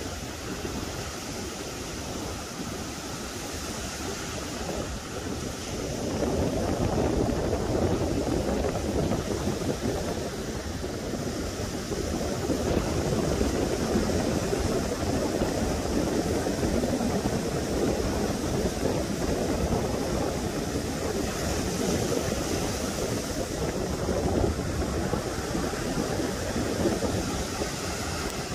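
Sea surf breaking and washing up a beach: a steady rushing noise that grows louder about six seconds in.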